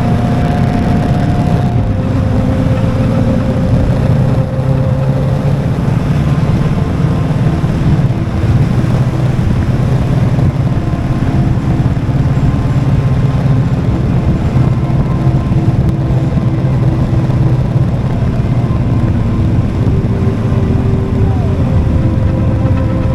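Motorcycle running at a steady cruise, its engine note mixed with heavy wind and road noise.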